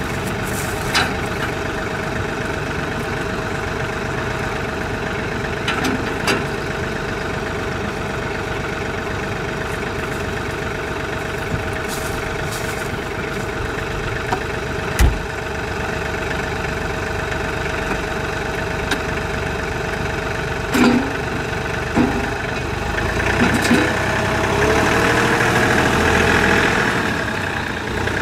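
John Deere 3046R compact tractor's three-cylinder diesel idling steadily, with a few short metal clanks from the rear quick hitch and box blade as the blade is unhooked. Near the end the engine gets louder and changes pitch as the tractor pulls away from the blade.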